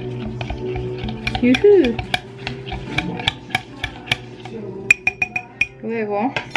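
A spoon stirring a drink in a glass mug, clicking and clinking against the glass at about three or four strokes a second as powdered milk tea is dissolved in hot water. The sharpest clinks come about five seconds in.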